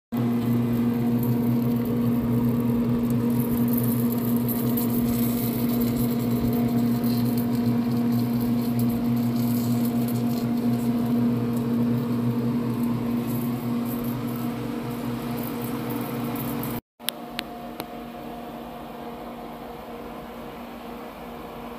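Steady hum of a small electric motor, with a clear low tone; it drops in level after a cut about 17 seconds in.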